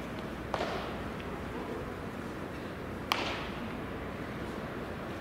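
Two sharp cracks of a pitched baseball arriving at home plate, about two and a half seconds apart, over the steady hiss of an open-air ballpark.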